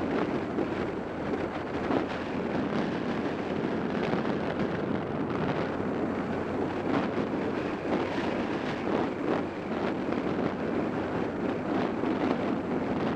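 Wind buffeting the microphone of a camera on a motorcycle riding at a steady speed, a constant rush with brief gusts, with the bike's engine and road noise blended underneath.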